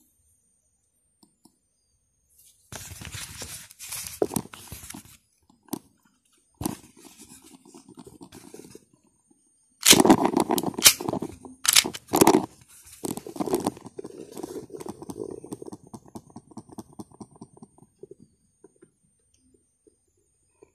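Handling noise from a Glock 26 pistol being worked in the hands: several stretches of scraping and rubbing, with sharp clicks in the loudest stretch about ten to twelve seconds in.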